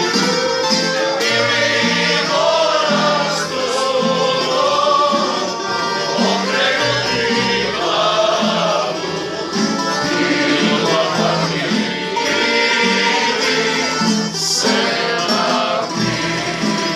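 Group of men and women singing a folk song together, accompanied by a tambura strummed in a steady rhythm.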